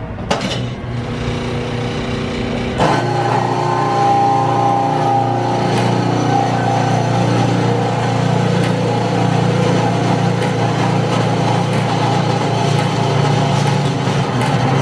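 A 3-horsepower pony motor starts up about three seconds in and runs steadily, turning over a 7.5 hp Economy stationary engine to start it.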